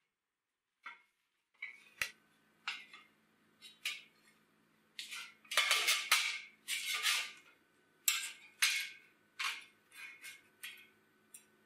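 Steel parts handled on a slatted steel workbench: a square steel tube, a flat steel plate and a steel ruler knocked, slid and scraped against the metal slats. Short clinks and scrapes follow one another, with a louder run of longer scrapes in the middle.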